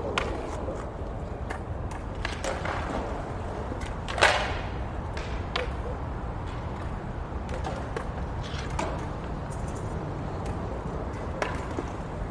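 Skateboards on a stone-paved plaza: wheels rolling and boards clacking and snapping against the ground as skaters do tricks, with one loud board impact about four seconds in. A steady city hum lies underneath.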